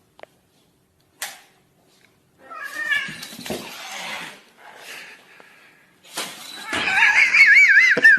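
A cat yowling: short wavering calls about two and a half seconds in, then a long, loud yowl with a wobbling pitch near the end. A sharp knock sounds about a second in.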